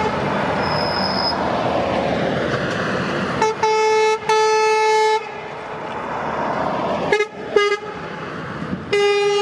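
Heavy trucks driving past in a convoy, with engine and tyre noise, sounding their air horns: a short blast and then a longer one about a third of the way in, two quick toots later, and another blast starting near the end.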